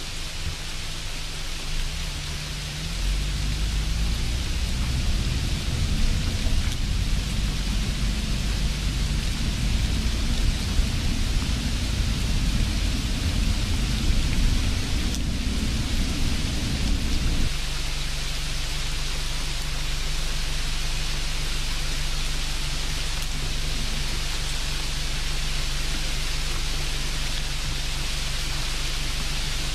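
Steady hiss of background noise, with a deeper rumble joining about three seconds in and cutting off abruptly a little past halfway.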